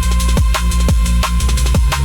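Instrumental breakbeat electronic music: fast broken drum pattern with pitch-dropping kick drums over a heavy sustained bass and a steady high synth tone.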